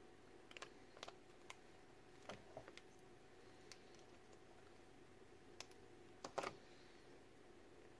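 Faint, scattered clicks and soft taps as cured resin charms are popped out of a flexed clear silicone mold, the loudest little cluster about six seconds in.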